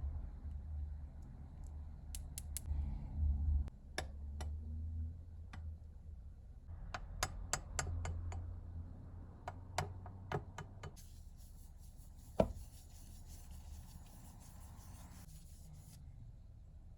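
Hand-tool work in a workshop: scattered light taps and clicks over a low steady hum, with one sharper knock partway through and a high hiss for a few seconds after it.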